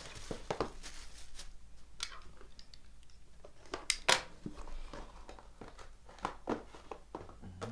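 Packaging being handled: rustling and crinkling with scattered clicks, and two sharper snaps about four seconds in.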